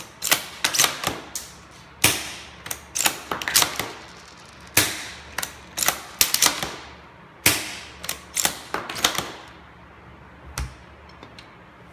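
Gas-powered bolt-action airsoft M700 rifle firing three shots about every two and a half seconds, each followed by a quick run of metallic clicks as the steel bolt is cycled. A single click near the end.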